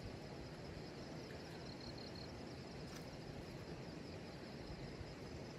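Faint steady background hiss with insects chirring, and a few short quick chirps about two seconds in.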